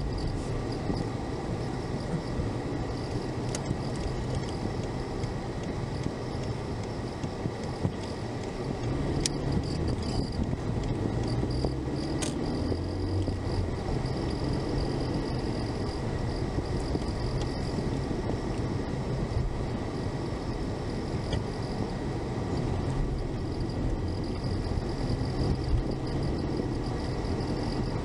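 A car driving, heard from inside the cabin through a dashcam's built-in microphone: steady engine and road rumble that swells a little about ten seconds in, with a faint steady high-pitched whine over it.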